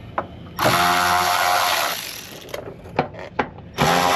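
Cordless power tool spinning a fastener out of the car's underside in two bursts of about a second and a half each, with a couple of sharp clicks between them.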